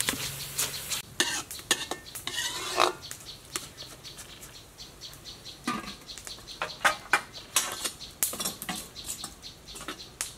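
Metal ladle scraping and clinking against a wok as raw rice is stirred in oil, with a light sizzle, then sharp metal clanks as a domed aluminium lid is set on the wok.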